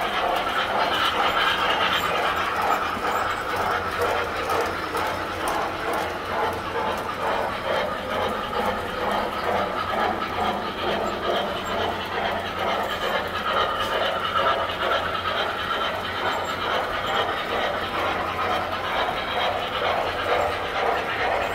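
Tinplate toy electric trains running on their track: a steady mechanical running noise with a regular clicking of wheels over the rail joints and a low steady hum underneath.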